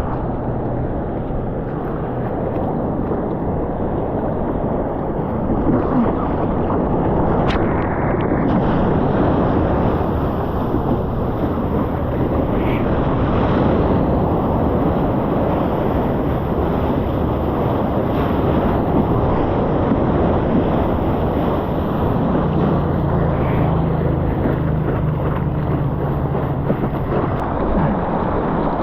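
Strong wind buffeting the action-camera microphone, a steady rushing noise, with ocean surf underneath.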